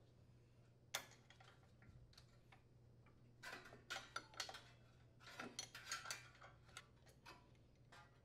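Faint, irregular metallic clicks and clinks of a socket wrench and hands working on a small-engine starter motor's mounting bolts, one click about a second in and a dense run of them from the middle on, over a faint steady hum.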